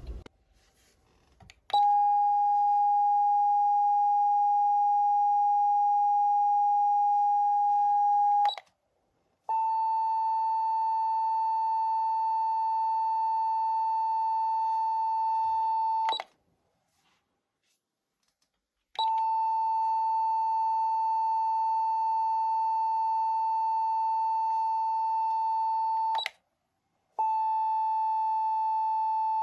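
Clarion A-600F siren amplifier sounding a hidden tone set on its DIP switches: a steady electronic beep that does not wail, held for about seven seconds at a time with short breaks, four times, with a click at each start and stop. The first tone is slightly lower in pitch than the rest.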